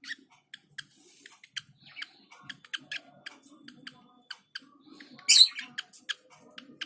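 Lovebirds chirping in short sharp calls, with one loud harsh squawk about five seconds in.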